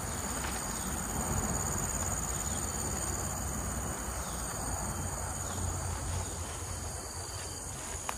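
Tropical forest insects shrilling steadily in several high pitched tones, with a low rumble underneath.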